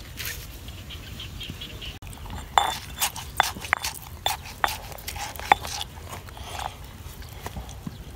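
Light clicks and taps of hands squeezing a lime over a small pot, in a quick irregular run for a few seconds in the middle.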